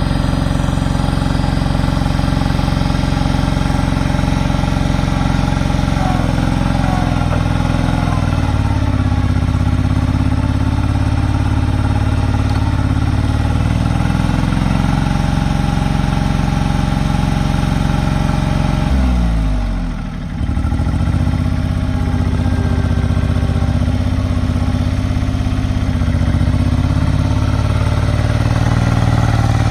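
Diesel engine of a Kubota L39 backhoe running steadily. About two-thirds of the way through, its speed drops sharply and then picks back up.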